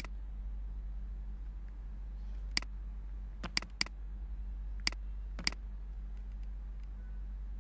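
Computer mouse clicking: several sharp single clicks spread over the first five and a half seconds, some in quick pairs, over a steady low electrical hum.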